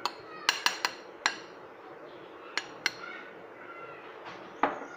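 Short sharp clicks and knocks of a plastic bowl tapping against a stainless steel bowl as flour is tipped and shaken out of it: a quick run of taps in the first second or so, a couple more about two and a half seconds in, then a louder knock near the end.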